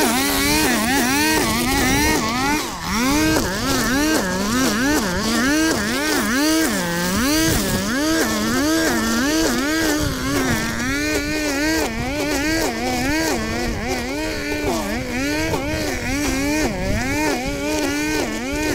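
Petrol strimmer engine running at high revs while cutting weeds, its pitch repeatedly dipping and rising again about once a second as the line swings through the growth.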